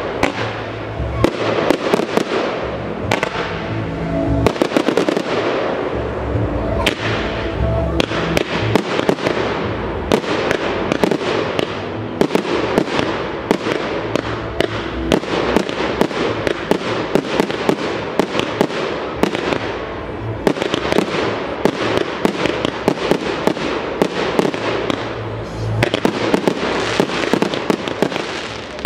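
Fireworks display: aerial shells and cakes going off, a dense string of bangs and crackles in quick succession.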